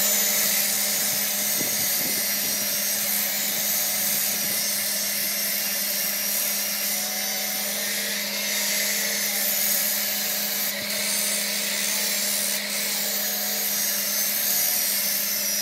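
Power sander with a foam pad held against a wooden vase spinning on a wood lathe: a steady sanding hiss over the even hum of the running motors.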